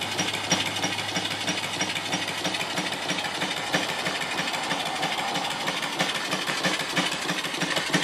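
Allen single-cylinder steam engine running steadily on boiler steam: a rapid, even exhaust beat over a steady hiss of steam.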